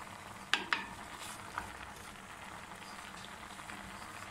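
Wooden spoon stirring diced turnips in a clay cooking pot, over a steady low sizzle of the vegetables cooking. Two sharp knocks of the spoon come about half a second in, the loudest sounds, with a few lighter taps and scrapes after.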